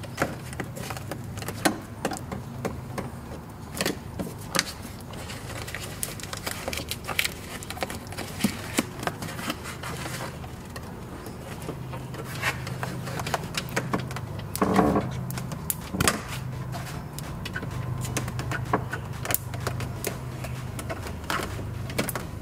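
Foam door insulation being peeled off its sticky sealant bead on the inner door panel, giving irregular crackles and clicks as the glue lets go, over a steady low hum.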